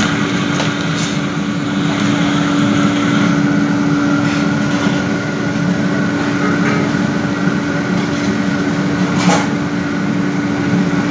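Batter deep-frying in a large iron kadai of hot oil, sizzling, over a loud steady machine hum. One sharp knock about nine seconds in.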